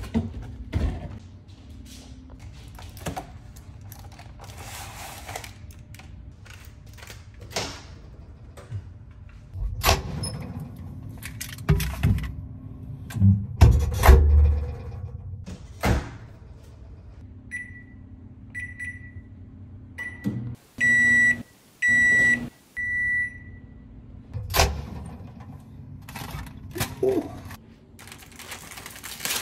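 Scattered thuds and clunks of footsteps and handling in a kitchen. Later a microwave oven runs with a low hum and beeps several times, short high beeps, two of them much louder.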